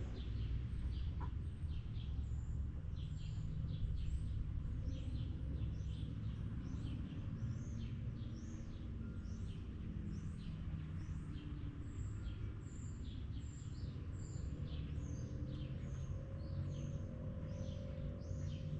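Small birds chirping over and over in short, high, falling notes, one or two a second, above a steady low rumble.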